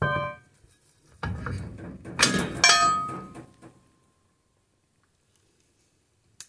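A crowbar levering a steel brake drum off its hub, making ringing metal clangs. There are four clanks in about three seconds, and the last one rings on briefly.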